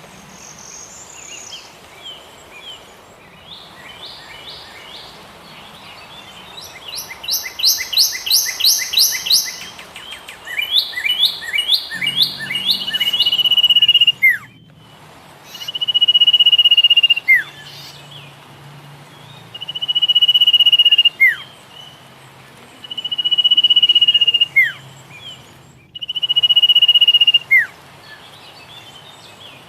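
Songbirds singing: a fast run of repeated high chirping notes, then a bird repeating a long, steady whistle that ends in a quick downward note, about every three and a half seconds.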